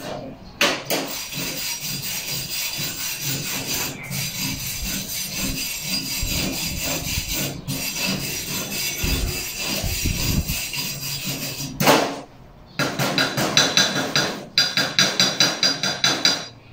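Chipping hammer knocking and scraping slag off stick-weld beads on a steel plate, a dense run of rapid taps. About three quarters of the way through it changes to a wire brush scrubbing the beads in quick back-and-forth strokes, about four a second.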